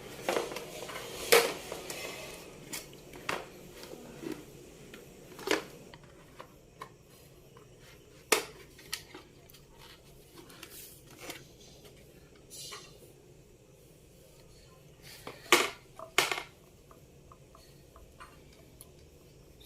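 Scattered clicks and knocks of an induction stove's plastic casing being prised open and its halves handled, with quieter rustling between the sharp knocks and two strong knocks late on.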